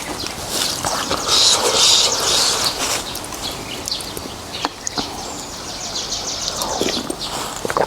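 Close-up eating sounds: noodles in beef soup being slurped and chewed, with wet mouth clicks and a longer hissing slurp about a second and a half in.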